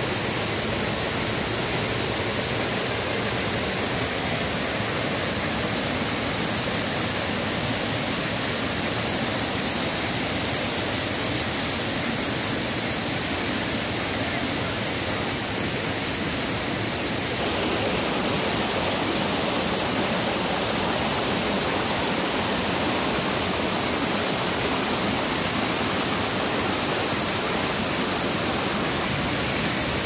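Waterfall's steady rush of falling water, growing a little louder about halfway through.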